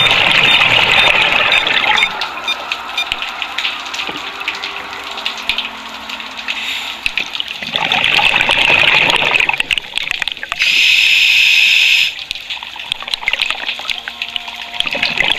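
Scuba diver breathing through a regulator underwater: long bubbling exhales at the start, about eight seconds in and near the end, with a steady hiss of air drawn through the regulator at about eleven seconds.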